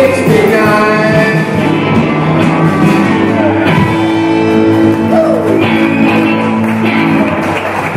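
A rock band playing live, with guitars prominent.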